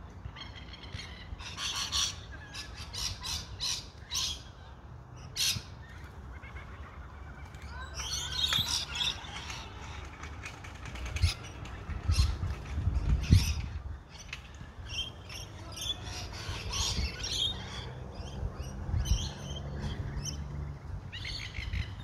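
A mixed flock of rainbow lorikeets and noisy miners calling, many short shrill squawks and chirps in an irregular stream. A low rumble swells and fades around the middle.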